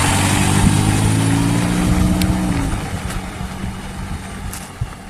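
A motor vehicle's engine running with a steady low hum over rushing wind or road noise; the engine tone fades out about halfway through, leaving the noise.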